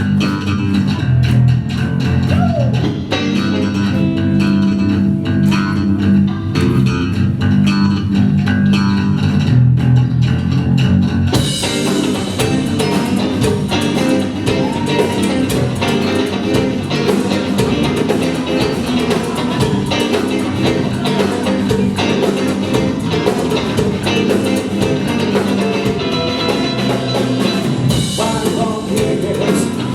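Live band playing an instrumental groove led by electric bass and guitar; about eleven seconds in, the drums and cymbals come in and the full band takes over.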